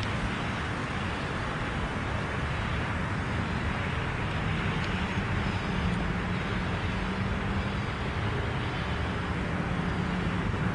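Steady road traffic noise, with a low engine hum from a passing vehicle standing out in the middle.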